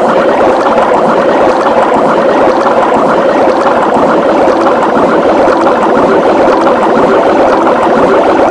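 A cartoon soundtrack overlaid on itself well over a hundred times, blurred into a loud, steady wash of noise in which no single voice or sound stands out.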